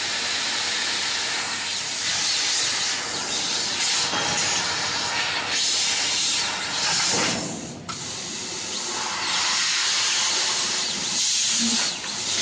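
Fiber laser cutting machine cutting sheet metal: a loud steady hiss of assist gas jetting from the cutting nozzle, dipping briefly a few times.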